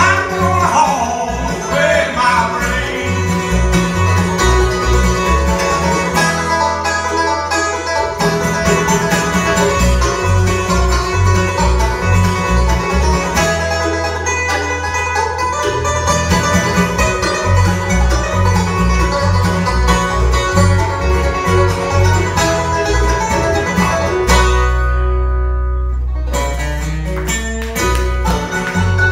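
Bluegrass band playing live: banjo, mandolin, acoustic guitar and bass together. A little before the end the higher instruments fall away briefly, leaving a held low note, then the band comes back in.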